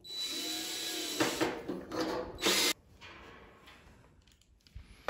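DeWalt cordless drill/driver running for nearly three seconds as it drives an M6 screw to fasten a steel handle onto the griddle frame, then stopping.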